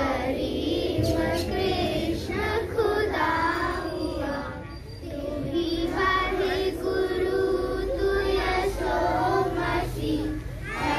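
A group of schoolchildren singing a prayer together.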